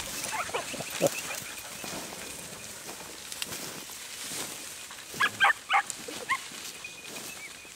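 Andalusian podencos (hunting hounds) yelping in short, high calls as they work the field, with a quick run of loud yelps about five seconds in.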